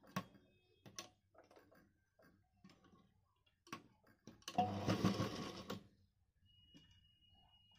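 Sewing machine running in a short burst of stitching, about a second long, a little past the middle, as a zip is sewn onto fabric. Scattered light clicks and taps from handling the fabric and machine come before it.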